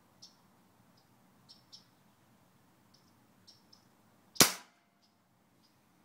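A single shot from a Hatsan Model 95 .22 break-barrel spring-piston air rifle, about four seconds in, with a short tail after it. Faint high chirps, likely birds, come and go before the shot.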